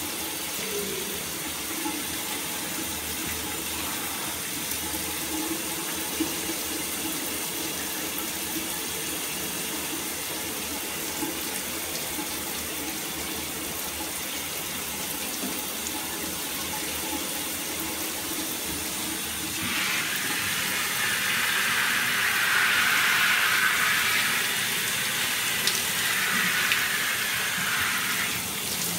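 Shower running, its water spraying and splashing over a person's arm. About twenty seconds in the spray grows louder and hissier for most of the remaining time.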